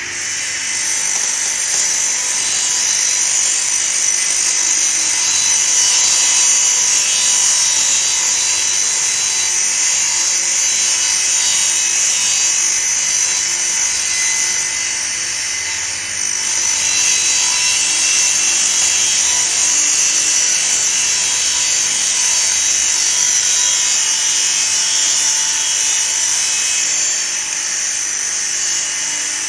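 Table saw ripping a long, narrow wooden board along the rip fence: a steady, high-pitched blade noise through the cut, with a brief dip about halfway and easing slightly near the end.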